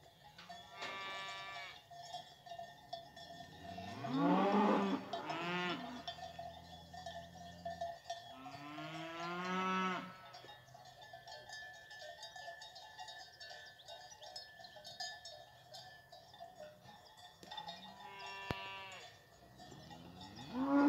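Fighting-breed cows and their calves mooing: about five separate calls spread through, the loudest about four seconds in, with quieter stretches between.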